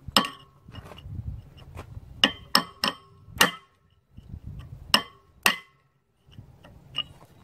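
Hammer striking a steel punch set against a gib key in the flywheel hub of an International Harvester Type M 3 HP engine, to drive the key out. About seven sharp, ringing metallic blows in uneven groups, with a lighter tap near the end.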